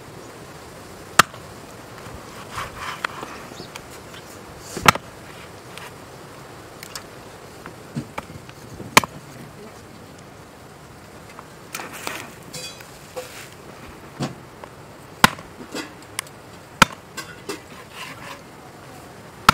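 Long knife chopping through Amur catfish on a wooden board: a handful of sharp chops a few seconds apart, with some lighter knocks between them.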